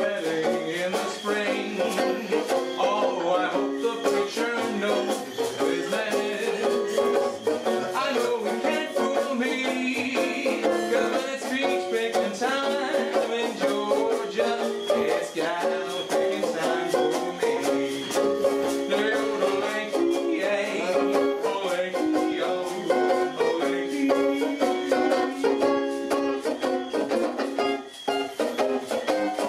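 Banjo picked in a lively mento rhythm, a steady run of quick plucked notes with no singing over it: an instrumental break between sung verses.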